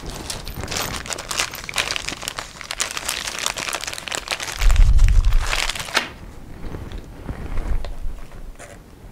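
Crinkling and crackling handling noise for about six seconds, with a low thump about five seconds in, then quieter scattered handling sounds.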